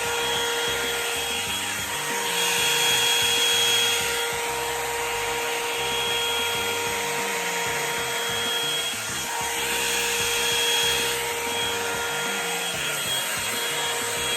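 Revlon One-Step hair dryer brush running, a loud steady rush of air over a motor whine; the sound brightens twice along the way.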